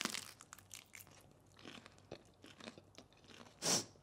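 People chewing and biting food: faint, scattered crunching and mouth clicks close to the microphone, with one short louder noise near the end.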